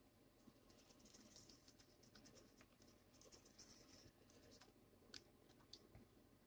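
Faint scratching of a pen tracing a spirograph line, with light clicks of a plastic gear's teeth as it is rolled around inside a toothed ring. The ticks come irregularly and fade out near the end.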